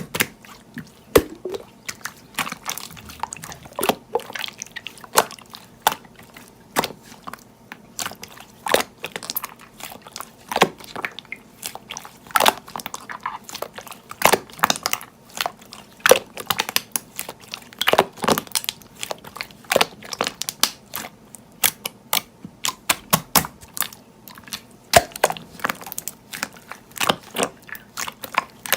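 Slime being squeezed and poked by hand, making irregular crisp clicks, pops and crackles several times a second.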